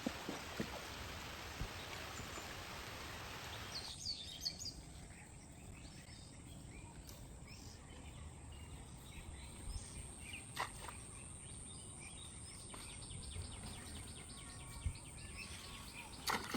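Outdoor ambience: a steady background hiss with occasional short bird chirps, a thin steady high tone and a few isolated knocks. The hiss drops off about four seconds in.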